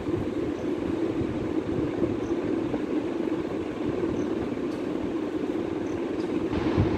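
Steady low rumbling background noise, even throughout.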